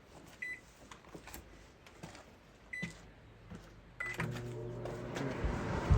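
LG over-the-range microwave's keypad beeping as the time is entered, single short beeps a couple of seconds apart; about four seconds in, after the last beep, the oven starts and runs with a steady hum. A sharp knock near the end.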